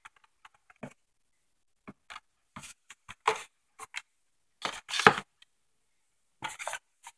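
Plastic action-figure packaging being handled: irregular clicks and crackling rustles, loudest a little past halfway, with another burst near the end.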